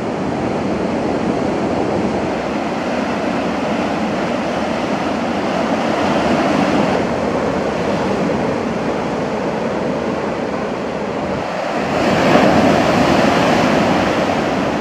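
Surf washing onto a beach in a continuous roar of breaking waves, swelling now and then, with a louder wave crashing near the end.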